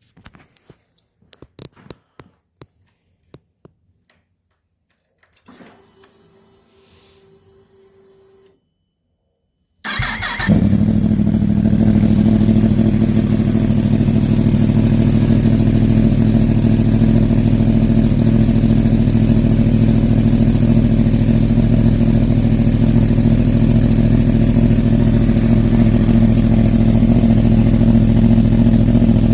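Yamaha R1's crossplane inline-four cold-starting on its stock slip-on muffler. A few faint clicks and a low hum come first; about ten seconds in there is a short crank, the engine catches and it settles into a steady, loud idle.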